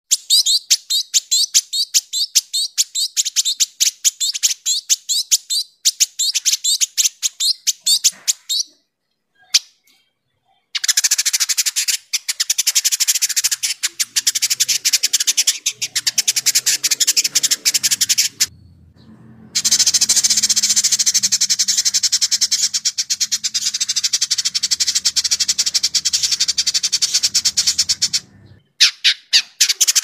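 Village indigobird singing a rapid, tightly packed chatter of sharp, high notes (crecetan), in long runs broken by short pauses.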